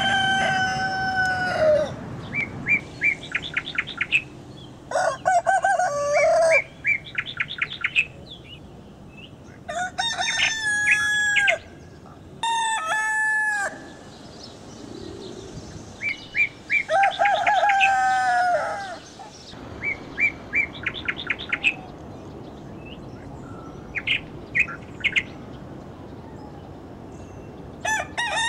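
Roosters crowing: about six separate long crows that rise and fall in pitch. Between the crows come quick runs of short, high, repeated calls.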